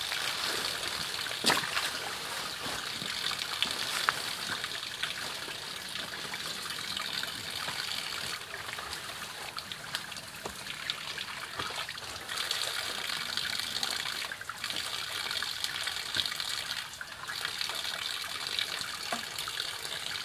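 Forest ambience: a steady high-pitched hiss that drops out briefly a few times, with rustling and small snaps of undergrowth as people move and pick through ferns and brush.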